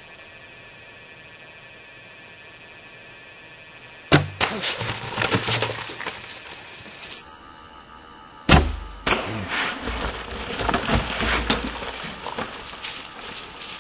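Sharp snap of a Cari-bow Taiga recurve bow being shot at a black bear, followed by the bear crashing away through brush. It is heard twice: about four seconds in with three seconds of crashing, and again about eight and a half seconds in with longer, heavier crashing and thumps.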